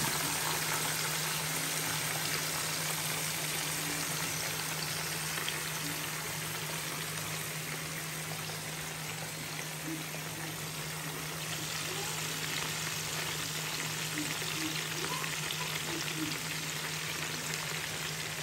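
Whole fish deep-frying in a pan of hot oil: a steady crackling sizzle of bubbling oil, with a low steady hum underneath.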